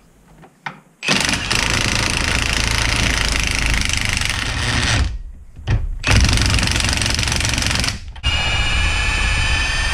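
Milwaukee M18 Fuel cordless impact wrench hammering on a bolt on setting 2, in three long bursts with short pauses between; the last burst carries a steadier whine. Setting 2 is too powerful for a wheel-stud-size bolt, which the user suspects has stripped its threads.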